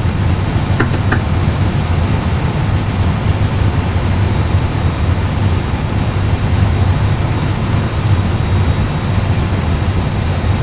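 Steady low rumble of an Airbus A320's engines at taxi idle, as reproduced by a full flight simulator's cockpit sound system. Two light clicks come about a second in.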